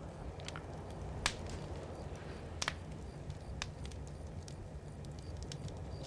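Campfire crackling: scattered sharp pops and snaps, the loudest about a second in, over a low steady rumble.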